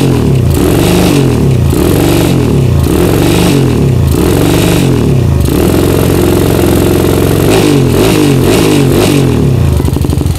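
Bored-up Honda CB single-cylinder engine (66 mm piston, 28 mm carburettor) revved in quick repeated blips, roughly one a second, with a steadier stretch midway, through a PDK slip-on silencer. The carburettor is set very rich.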